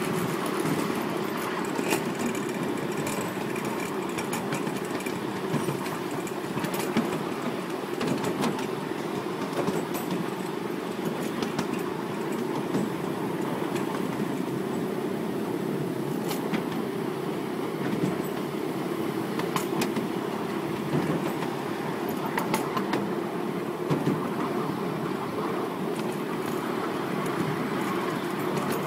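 Miniature railway train running along its track, heard from aboard a ride-on passenger car: a steady rumble of wheels on rail with irregular sharp clicks as the wheels pass over rail joints.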